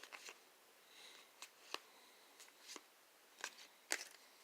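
Trading cards being handled and flipped through, giving a scattering of faint, sharp clicks as the card edges tap and slide against each other.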